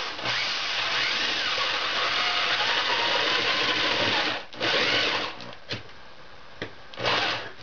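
Electric drill boring an entrance hole in a dried gourd shell. It runs for about four seconds with its pitch wavering as the bit works in, then gives two short bursts, the second near the end.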